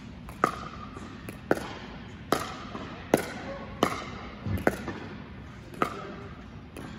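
Pickleball paddles striking a hard plastic ball in a backhand dinking rally: sharp pops, about eight in all, a little under a second apart, ringing briefly in a large indoor court hall.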